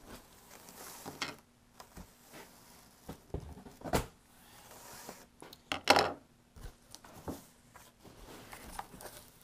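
Cardboard shipping box being opened by hand: flaps and packing handled and rustled, with scattered knocks, a sharp click about four seconds in and a louder rustle about six seconds in.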